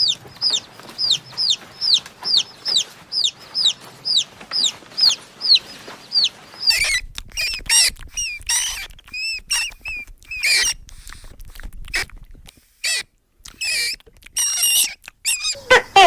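Chickens: chicks peeping in an even run of short, falling chirps, two or three a second, then about seven seconds in an abrupt change to louder, choppier chicken calls broken by short gaps.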